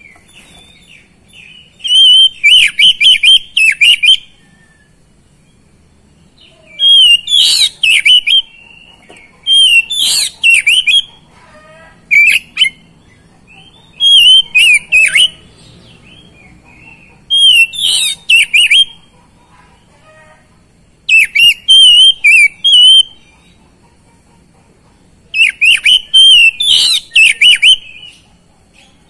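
Oriental magpie-robin singing loud phrases of fast, varied whistled notes, each one to two seconds long, about eight phrases repeated every few seconds with short pauses between.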